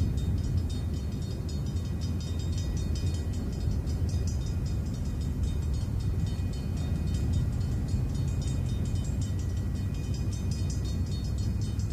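Railroad grade-crossing warning bell starting to ring, a rapid, even ringing that keeps on, over a low rumble of road traffic and the approaching diesel train; a truck drives past about halfway through.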